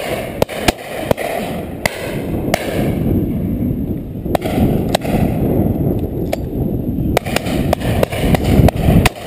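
Wind buffeting a head-mounted camera's microphone, a steady low rumble, with a scatter of sharp clicks throughout.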